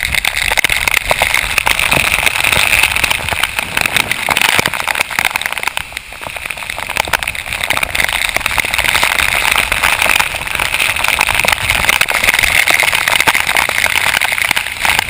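Torrential rain pouring down: a dense, loud hiss full of close, rapid drop taps, easing briefly about six seconds in.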